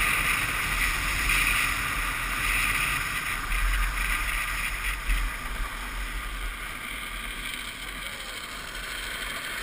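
Drift trike coasting fast down an asphalt road: a steady rush of wind on the microphone with the hiss of its wheels rolling on the pavement, easing off about halfway through.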